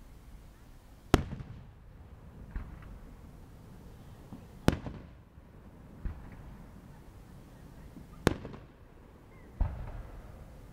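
Aerial firework shells bursting: three sharp bangs about three and a half seconds apart, each followed about a second and a half later by a softer boom.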